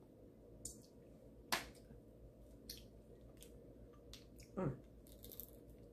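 Quiet sounds of eating snow crab by hand: a few sharp clicks and snaps as pieces of shell are picked apart, the loudest about one and a half seconds in. A short falling squeak comes about four and a half seconds in, and a brief sucking hiss near the end.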